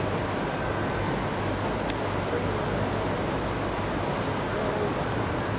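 Steady traffic noise of a line of Corvettes idling and creeping forward in slow parade traffic: an even low rumble under a wide hiss.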